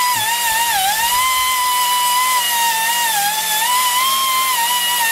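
Die grinder spinning a yellow 3M bristle disc to strip old gasket material from a compressor head's sealing face. It makes a steady high whine with hiss, and the pitch dips several times as the disc is pressed onto the metal.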